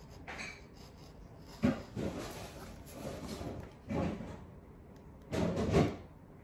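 Utility knife blade cutting and scraping at a thin cardboard box in several strokes. A sharp click comes about a second and a half in, and the loudest stroke is near the end.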